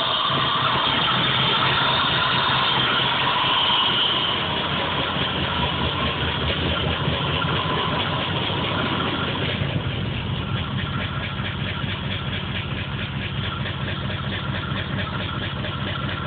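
Car engine running rough at idle with a misfire, which the owner's scanner reads as a P0300 random misfire code. It runs with a fast pulsing beat, a little louder for the first few seconds and settling lower about ten seconds in.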